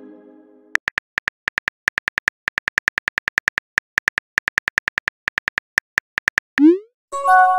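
Phone keyboard typing clicks from a texting app, a rapid run of short ticks at about six a second as a chat message is typed. Near the end a short rising swoop and a chiming tone sound as the message is sent.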